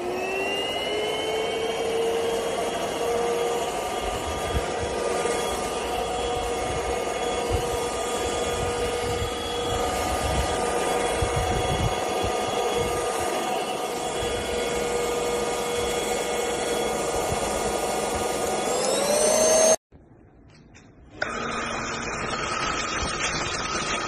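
Cordless stick vacuum's motor spinning up to a steady high whine over the rush of suction. Near the end the pitch climbs sharply and the sound cuts off. After a second of quiet, a vacuum runs again with a steady whine.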